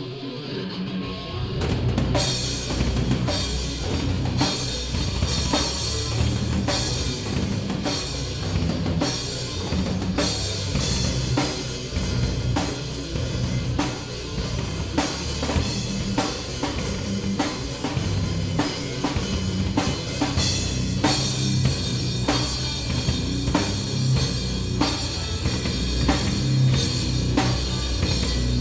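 Live band playing an instrumental passage driven by the drum kit, with steady kick-drum and snare hits; the sound thickens into the full band about two seconds in.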